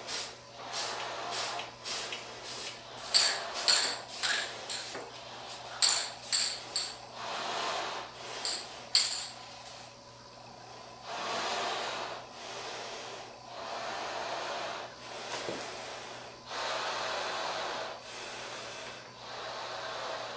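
Aerosol spray can of paint being shaken, its mixing ball rattling in quick clicks, then several short bursts of spray hiss, each a second or two long.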